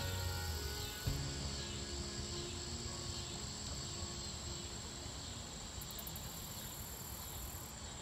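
Insects calling in a steady high-pitched trill, with a faint pulsing chirp below it, over soft background music.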